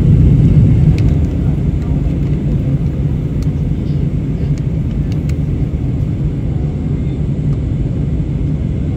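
Steady low rumble of airliner cabin noise, engines and airflow heard from a passenger seat during the descent to landing, easing slightly about a second in, with a few faint clicks.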